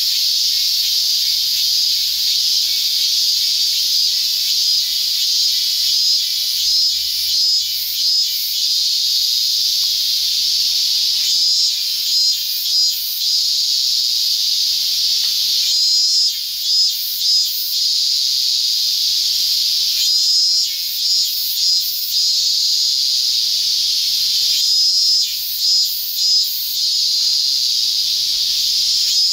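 Steady, high-pitched, sizzling drone of a cicada chorus. It breaks into quick pulsing throbs several times.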